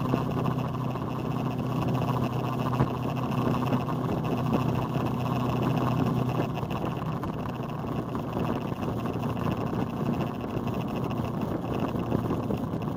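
Motorcycle engine running at a steady cruising speed, heard from on board with wind and road noise. The steady engine hum fades about halfway through, leaving mostly a broad rush of wind.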